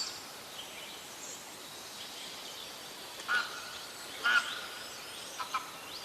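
A few short bird calls over a steady background hiss: one about three seconds in, the loudest a second later, and two quick ones near the end.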